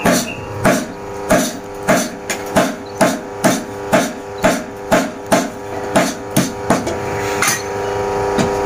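Hand hammer striking a red-hot steel blade on a small anvil, about two blows a second, each with a short metallic ring, stopping about seven seconds in. A steady hum runs underneath.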